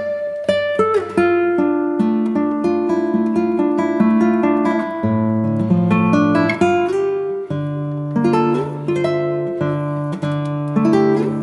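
Background music led by acoustic guitar: plucked and strummed chords over a steady bass, with a new chord struck every second or so.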